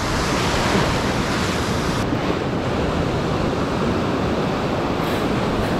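Ocean surf breaking and washing over a shallow rock reef, a steady rush of water with wind on the microphone.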